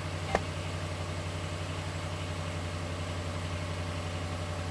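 Pickup truck engine idling steadily, with one sharp click about a third of a second in.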